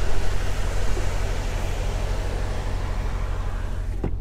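Semi truck's diesel engine idling with a steady low hum, heard from inside the cab, under a hiss from outside that slowly fades. About four seconds in there is a single sharp click, after which the hiss drops away.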